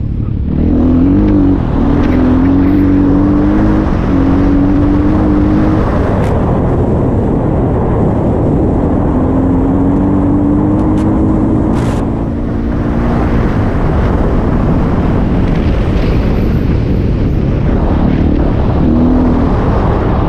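KTM 350 XC-F dirt bike's single-cylinder four-stroke engine running under way, its pitch climbing in long pulls and dropping back as the throttle is worked. Heavy wind rush on the microphone throughout.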